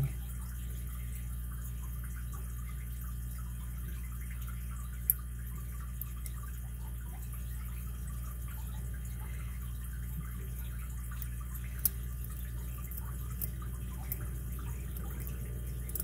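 Sparse small clicks and ticks of a lock pick working the pins of a Hercules 800 solid brass pin-tumbler padlock, with two sharper clicks about five and twelve seconds in, over a steady low hum.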